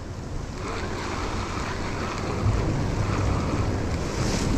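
Wind buffeting the microphone over the sea washing against the rocks of a breakwater, a steady rushing noise with a low rumble.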